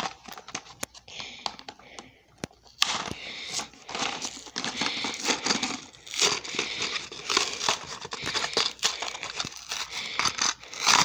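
Plastic blister pack and cardboard backing of a small toy engine being handled and pulled open: crinkling and tearing with sharp clicks, sparse at first and much busier from about three seconds in.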